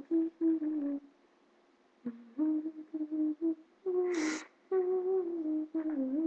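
A female voice humming a tune in short phrases of held notes, with a pause after the first phrase and a brief rustle about four seconds in.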